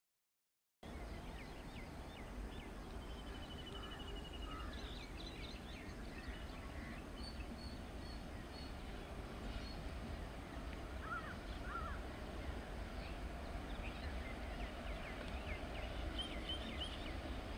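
Trackside ambience that starts about a second in: birds chirping and calling over a steady low rumble, with the rumble building slightly toward the end.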